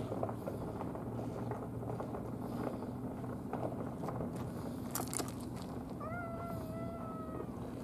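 A cat meowing once near the end, a single long meow of about a second and a half that rises slightly and then slowly falls. There are a couple of sharp clicks just before it and a steady low hum underneath.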